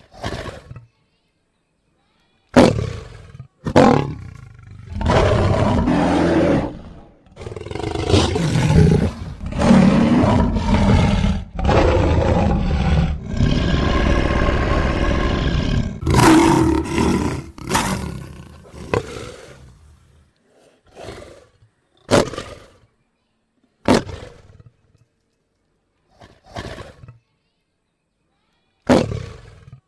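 Lion roaring: a few short calls, then a long loud run of deep roars, trailing off into a series of short grunts every second or two.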